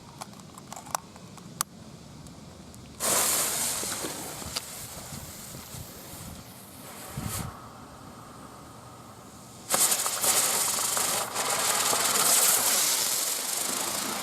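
Ladybug spinner firework going off: a few faint clicks, then a sudden loud hiss of spraying sparks about three seconds in that dies down after a few seconds, and a second loud hiss starting about ten seconds in that carries on to the end.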